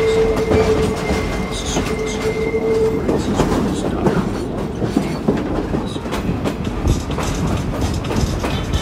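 Passenger train cars running on the track, heard from an open-air car: a steady wheel squeal on a curve for the first three seconds, over the rumble and clatter of wheels on the rails, which carries on after the squeal stops.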